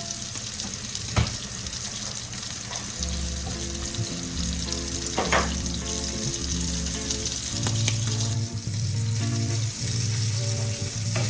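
Food sizzling steadily as it fries in a hot pan, with a couple of sharp clicks of a utensil against the pan. Background music with low bass notes comes in about three seconds in.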